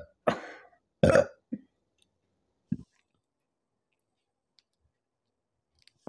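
A woman burping from fizzy soda, several burps in quick succession: one about a third of a second in, a loud one about a second in, then two short, softer ones.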